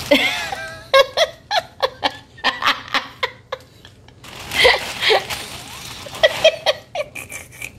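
A person laughing in short, repeated bursts, with a louder, higher stretch of laughter about halfway through.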